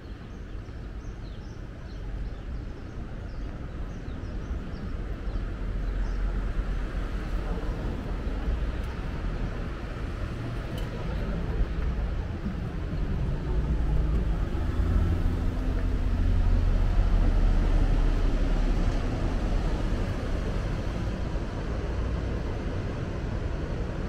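Outdoor street ambience dominated by road traffic: a steady low rumble that builds past the middle, peaks and eases off, with a few faint high chirps at the start.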